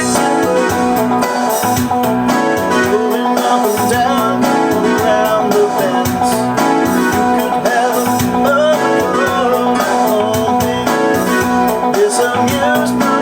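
Music: a Roland E-500 keyboard's sequencer playing a homemade MIDI backing track, with piano chords played along over it.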